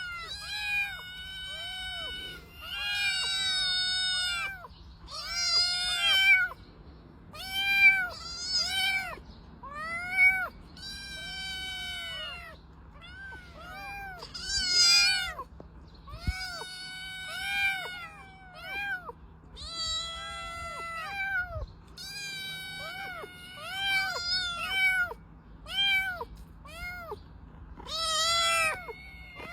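Cat meowing over and over, about one call every second or two, each meow rising and falling in pitch, some of them drawn out.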